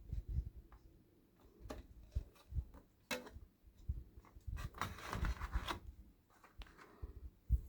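Scattered handling sounds: light clicks and low knocks, with a brief rustle about five seconds in.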